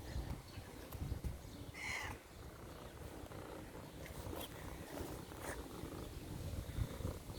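A cat vocalizing: a low, continuous rumble with one short, higher cry about two seconds in.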